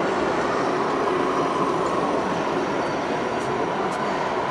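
Steady mechanical din of 1/14-scale remote-controlled model trucks running, with a faint steady whine.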